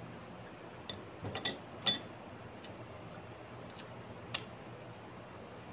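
Close-up eating sounds: a handful of short, sharp, irregular clicks and smacks from someone chewing, the loudest about two seconds in.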